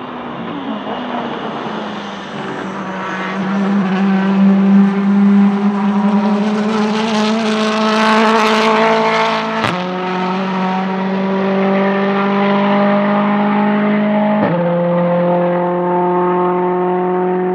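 Volvo S60 Polestar TC1 touring car's turbocharged 1.6-litre four-cylinder engine accelerating hard past at full throttle, revs climbing as it goes by close. It upshifts twice, about ten seconds in and again near fifteen seconds, the pitch dropping at each shift and then climbing again as it pulls away.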